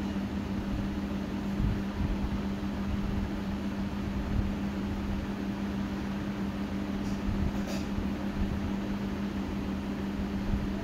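Juki industrial sewing machine running with a steady hum.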